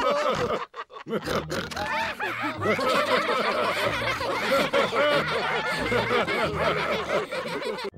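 Cartoon pig characters laughing heartily together, several voices at once. The laughter breaks off briefly a little under a second in and then carries on with a larger group.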